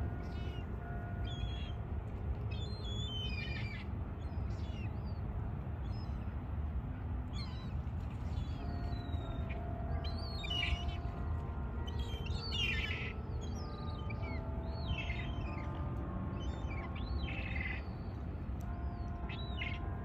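Gulls calling again and again, a string of short high cries that rise and fall in pitch, over faint sustained church bell notes and a steady low rumble.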